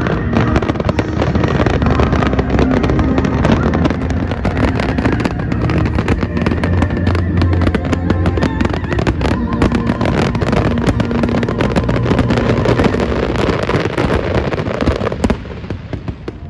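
Fireworks display: a dense barrage of rapid bangs and crackles over a continuous rumble, thinning out near the end.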